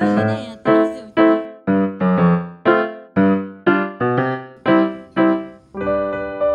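Background music on piano-like keyboard: chords struck in an even beat, about two a second, each dying away, then a long held chord from about 6 seconds in.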